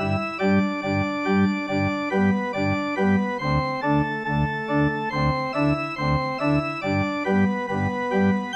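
Diatonic button accordion playing a brisk polka: a quick melody of held reedy notes over a regular bass-and-chord pulse of about two beats a second.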